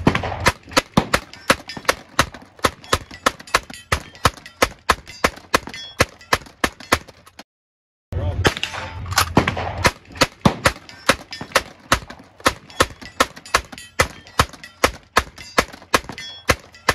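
M1862 Gatling gun, converted to .45 Long Colt, firing as its hand crank is turned: rapid, evenly spaced shots about five a second, in two long strings with a short break a little before halfway.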